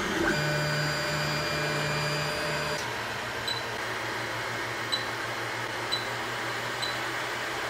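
Anycubic i3 Mega 3D printer running mid-print. Its motors whine at steady pitches in short stretches for the first few seconds, then give way to a steady fan hum with faint ticks about every two-thirds of a second.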